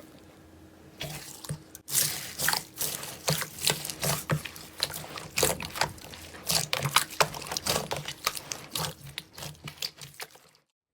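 Slime being squished and poked by hand, giving a quick, irregular run of wet clicks and pops that stops shortly before the end.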